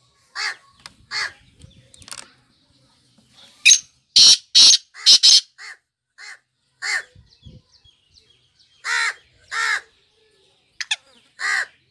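Black francolin calling: short, loud, scratchy notes in several groups, with the loudest, quickest run about four to five seconds in and more notes near the end.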